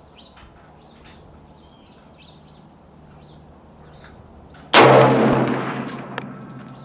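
A single rifle shot from a 6.5 Creedmoor AR-10-pattern rifle (Bear Creek Arsenal upper on an Aero Precision M5 lower) near the end: one sharp crack that rings out and fades over about a second and a half.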